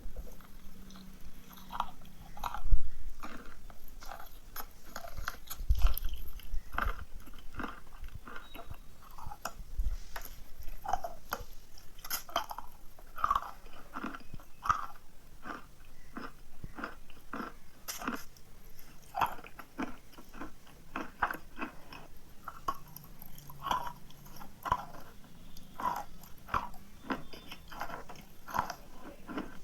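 A person biting into and chewing chalk: dense, irregular crunching, with a few louder bites in the first ten seconds.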